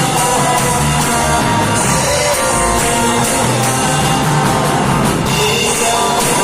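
Live worship band playing a rock-style song, with electric guitar to the fore over drums and bass in a steady beat.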